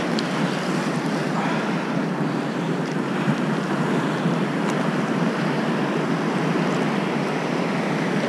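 Steady wind noise on the microphone over ocean water sloshing.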